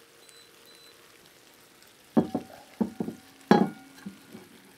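Faint simmering from a pan of pasta on low heat. From about two seconds in come several sharp clanks of cookware, the loudest about three and a half seconds in, which leaves a short metallic ring.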